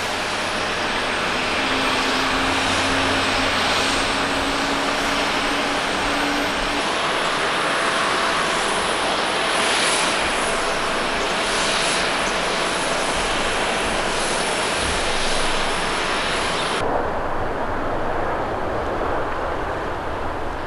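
Airbus A350 airliner jet engines running with a steady rushing noise and a high whine. The sound changes abruptly twice, about seven and seventeen seconds in, between different aircraft.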